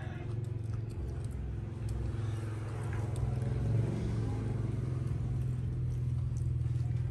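A steady low engine drone, like a motor vehicle running nearby, growing slightly louder about three seconds in.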